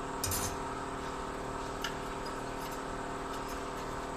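Light metal clinks and ticks from automatic gearbox parts being handled, with a short scrape near the start and a sharper click a little under two seconds in. A steady mechanical hum runs underneath.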